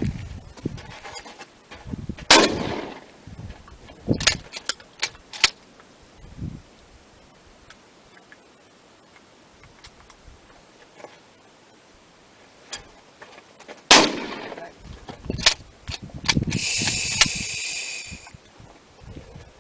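Two loud gunshots, one a couple of seconds in and one about two-thirds of the way through, each with a long echoing tail and followed by several lighter sharp clicks. Wind buffets the microphone with low rumbles, and near the end a high ringing tone sounds for over a second.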